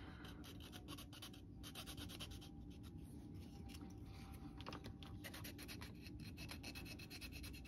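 Faint scratching and small clicks of hand tools trimming plastic model-kit parts cut from the sprue.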